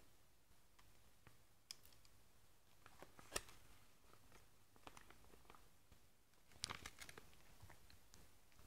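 Faint scattered clicks and light crackling of a small plastic Siku Claas Targo C50 toy telehandler being worked by hand, its bucket tipping and pushing dry shavings across a board. There is a sharper click a little over three seconds in, and a quick cluster of clicks near seven seconds.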